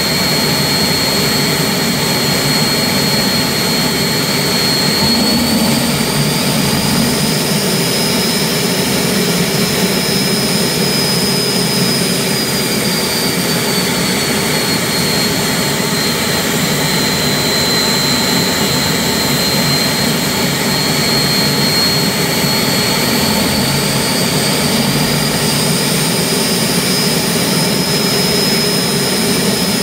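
Turbomeca gas turbine engine running steadily on a test stand during a ground run: a loud, even roar with a high turbine whine on top. The whine drifts slowly up in pitch about a quarter of the way in, sinks back around the middle, and rises again near the end.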